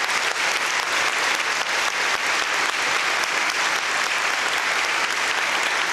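A congregation applauding: many people clapping steadily together.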